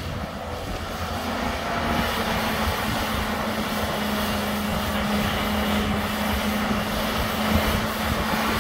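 Volvo crawler excavator's diesel engine running steadily under hydraulic load as the machine lifts a loaded bucket from a trench and swings it over to dump. The engine note rises a little about two seconds in and then holds.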